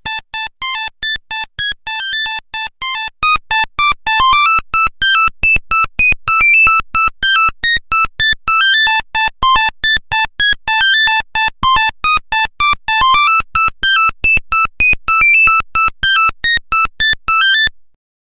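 Nokia 1100 monophonic ringtone: a fast, high-pitched melody of short buzzy electronic beeps, one note at a time, about four notes a second, which stops abruptly near the end.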